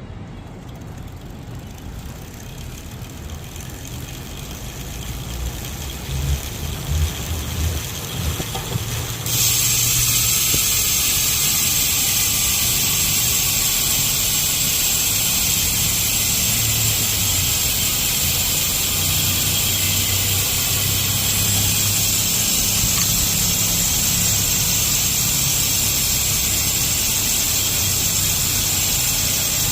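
Hope Pro 5 hub's freehub ratchet buzzing as the wheel freewheels. The buzz cuts in suddenly about nine seconds in, after a quieter rumbling build-up, and then holds loud and steady.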